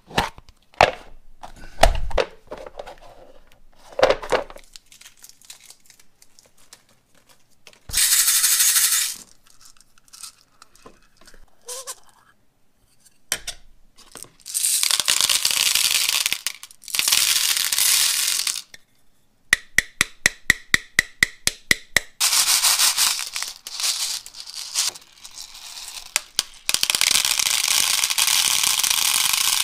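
Toys being handled: scattered clicks and taps, then several one-to-two-second bursts of steady hiss. About twenty seconds in there is a quick, even run of about fifteen clicks, roughly six a second.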